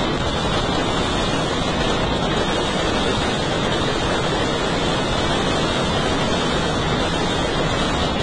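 A burning Ravana effigy with its firecrackers going off, heard as one steady, dense rush of crackling noise over the din of a large crowd.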